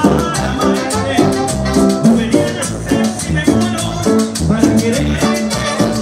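Salsa band playing live: congas, timbales and a metal shaker keep a busy percussion rhythm under the bass and melody.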